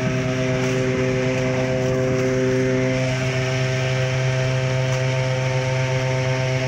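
Engine of drain-cleaning equipment running steadily: a constant drone made of several hum tones, one of which drops out about halfway through.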